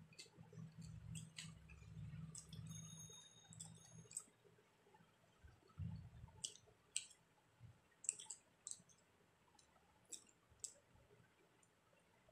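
Faint eating sounds: soft chewing, then a string of short, sharp mouth clicks and smacks in the second half as food is eaten by hand.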